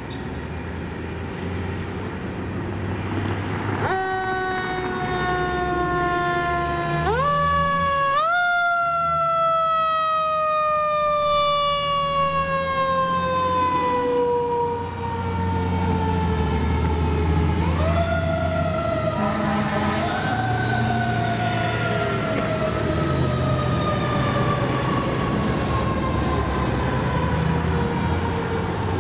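Fire ladder truck's siren over its running diesel engine. The siren starts about four seconds in and rises in quick steps. It then falls slowly for several seconds, winds up again twice near the middle and slowly falls away.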